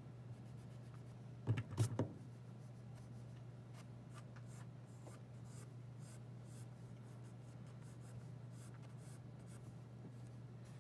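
Pencil sketching on drawing paper: faint, light scratching strokes, with a few sharp knocks close together about a second and a half in. A steady low hum runs underneath.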